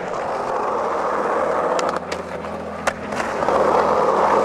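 Skateboard wheels rolling over rough asphalt: a steady gritty rumble, briefly quieter about two seconds in, with a few sharp clicks as the wheels hit cracks or grit.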